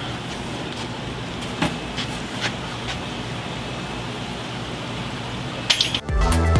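Steady background hiss with a few sharp crinkles of a plastic fish bag being handled; electronic music with a beat starts about six seconds in.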